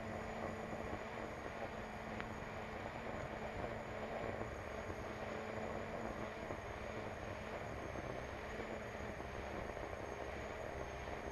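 Onboard sound of an unlimited hydroplane's Lycoming T55 turbine engine running steadily: a thin, slightly wavering high whine over a steady rush of noise.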